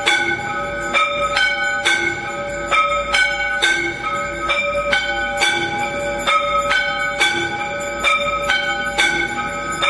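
Temple bells rung repeatedly for the aarti: about two strikes a second, bells of different pitch sounding in turn, each one ringing on into the next.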